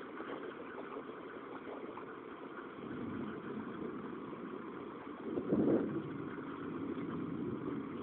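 Thunderstorm ambience: a steady hiss of rain with a short low rumble about five and a half seconds in.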